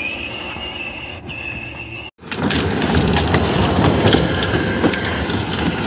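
A battery-powered Power Wheels ride-on toy car, with its electric drive motor whining steadily as it drives over grass. After a break about two seconds in, its hard plastic wheels rattle and clatter, louder, as it rolls along a concrete sidewalk.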